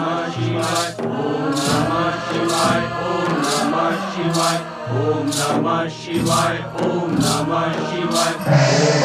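Devotional chant sung by a choir over background music, with a short high percussion stroke about once a second.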